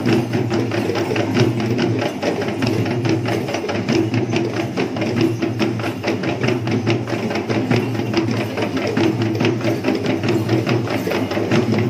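Kandyan drums (geta bera) played in a fast, even beat of many strokes a second, over a steady droning tone.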